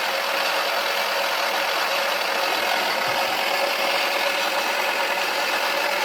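Toy washing machine's small electric motor running steadily, with a faint steady tone under an even whirr.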